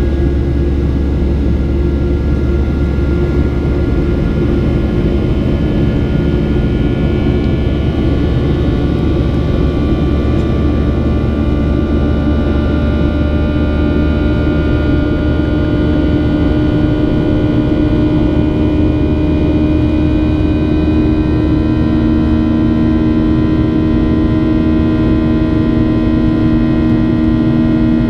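Cabin noise of a Boeing 737-800 in flight: steady rushing airflow and CFM56-7B engine noise, with a few steady humming and whining tones that drift slowly in pitch.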